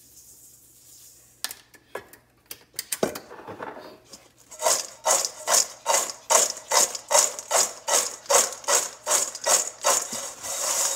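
Fried crinkle-cut potato fries being tossed in a stainless steel mixing bowl to coat them in seasoning: a regular scraping rattle of fries against the metal, about two to three times a second, setting in about four seconds in after a faint sprinkle of seasoning and a few scattered taps.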